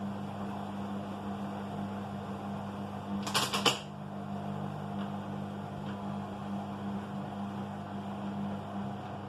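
Washing machine running mid-wash with a steady hum. About three seconds in comes a short, loud burst of rattling clicks, the kind of odd noise the machine makes while washing.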